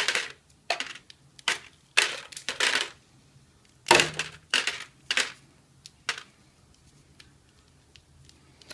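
Dry ear of corn twisted by hand to shell the kernels: a run of sharp, dry crackles as the kernels break loose, about ten in the first six seconds, then it goes quiet.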